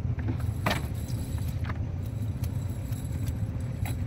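Chain weights of a cast net clinking a few times as the net is hauled over the gunwale and piled on a boat's deck, over a steady low rumble.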